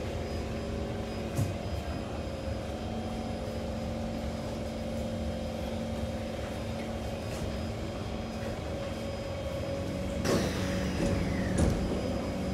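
Cabin noise of a Kawasaki C151 metro train in motion: a steady rumble with a constant hum. About ten seconds in comes a sudden louder burst with a falling whine and some clatter.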